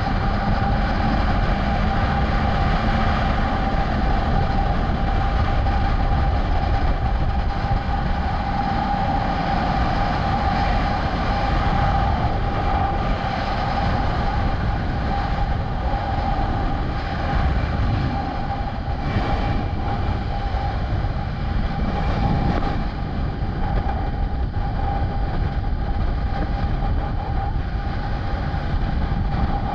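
Wind rushing over the microphone and a 2022 Kawasaki ZX-10R's inline-four engine running at a steady high road speed. A steady tone holds its pitch over the roar.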